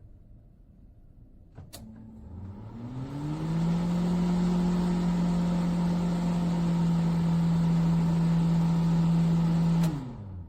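A microwave oven starts with a click, its hum rising in pitch over about a second and a half and then holding steady and loud, and it cuts out suddenly with a click after about eight seconds. This is a microwave that the owner says cannot run for 30 seconds before shutting off.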